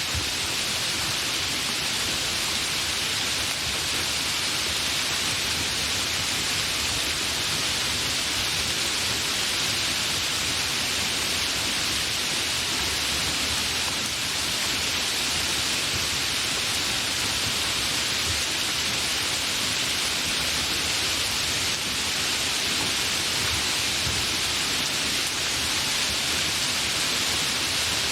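Steady, fairly heavy rain falling without thunder: an even, unbroken hiss.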